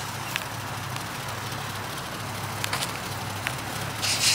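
Car engine idling steadily as a low hum, under a faint crackling noise, with a short burst of hiss about four seconds in.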